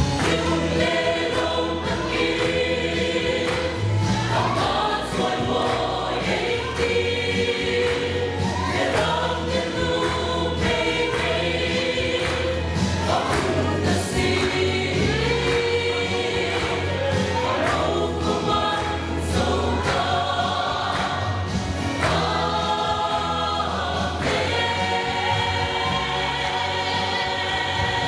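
Mixed choir of women's and men's voices singing a gospel song in parts, over a steady low bass accompaniment.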